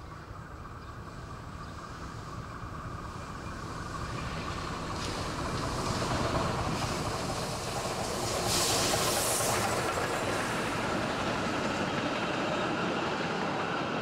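Narrow-gauge steam locomotive No. 1067 approaching with its train, growing steadily louder as it draws near. A loud hiss comes about eight and a half seconds in as the engine passes, then the coaches roll by.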